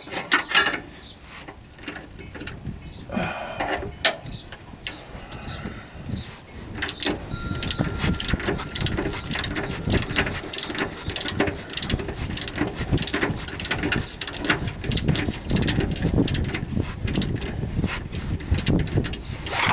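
Hand ratchet wrench clicking as a bolt is turned, with a few metal clanks at first, then a long run of quick, steady ratchet clicks through the second half.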